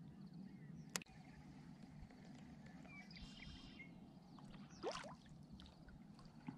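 Near silence on still water, with faint distant bird trills. There is a single sharp click about a second in and a brief rising swish about five seconds in as the fishing rod is swung.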